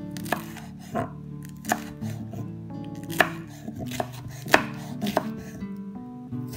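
Kitchen knife slicing green chillies on a wooden cutting board: about eight sharp chops of the blade on the board at an uneven pace.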